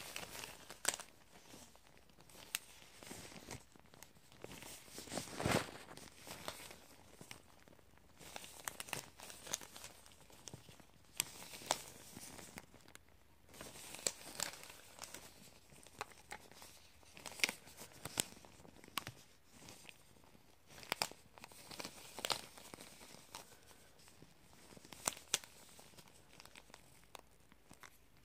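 Cotton thread for eyebrow threading being handled and pulled taut close to the microphone: irregular rustling and crinkling with scattered sharp ticks, the loudest about five and a half seconds in.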